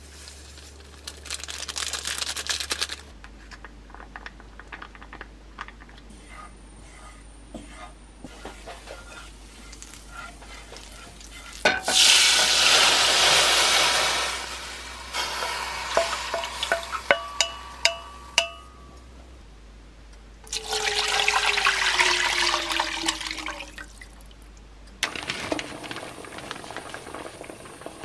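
Broth poured into a stainless steel pan on the stove, a loud rushing pour lasting a couple of seconds, followed by bubbling and scattered clicks. Another rush of liquid comes later, then the soup comes to the boil near the end, with a short hiss near the start.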